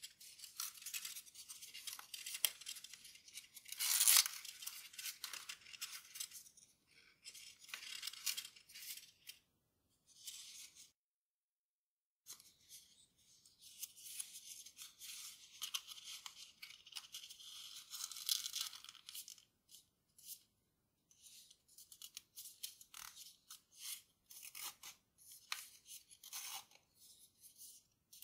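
Sheet of Grainy origami paper rustling and crinkling in irregular bursts as it is folded and creased by hand, with a sharper crackle about four seconds in and a short silent gap near the middle.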